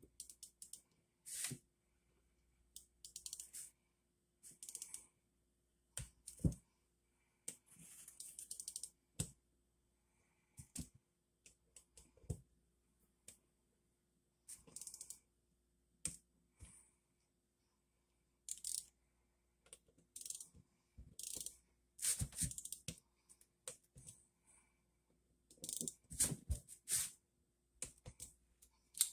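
Small ratchet wrench clicking in short, irregular runs while bolts are tightened on an outboard motor's engine block, with light metal clinks of the tool against the parts.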